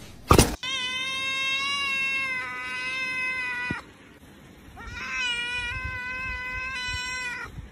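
A kitten meowing in two long, drawn-out meows that hold a steady pitch, the second sounding like "i wuuuv". A sharp thump comes just before the first meow.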